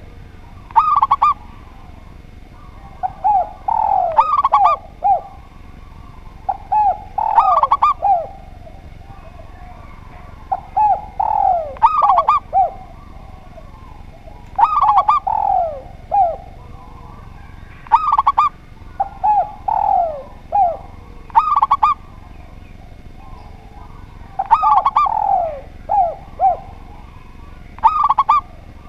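Spotted dove and zebra dove cooing, a phrase about every three and a half seconds, each a few short higher notes followed by falling, lower coos.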